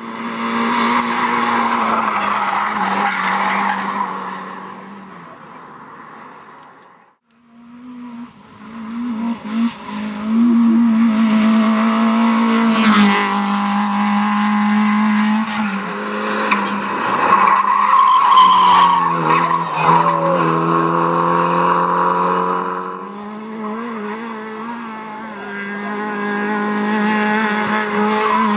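Rally car engines driven hard on a special stage, revving up and down through gear changes, with tyre squeal. One car fades away, there is a short break about seven seconds in, then another car comes up and runs loud, with two sharp cracks along the way.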